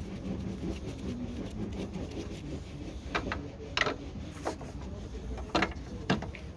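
Small metal parts of a car bonnet catch being handled, giving about five short sharp clicks and taps in the second half, over a steady low rumble.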